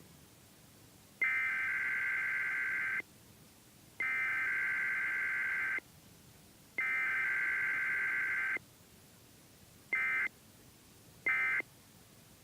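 Emergency Alert System SAME digital data tones: three long, identical bursts of harsh, warbling modem-like data (the header, sent three times) separated by about a second of quiet, followed near the end by two short bursts, the start of the end-of-message signal.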